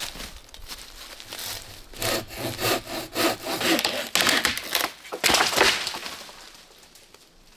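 Silky BigBoy folding saw cutting through dry wood in quick back-and-forth strokes, starting about two seconds in and loudest near the end of the cut before dying away.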